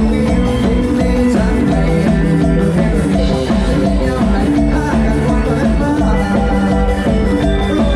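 Lam sing band music playing loud and without a break: held keyboard notes over a steady drum-kit beat.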